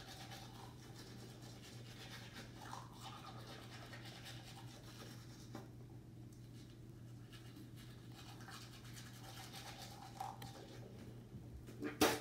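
Manual toothbrushes scrubbing teeth, a faint rapid scratching over a low steady hum. A sharp bump comes near the end.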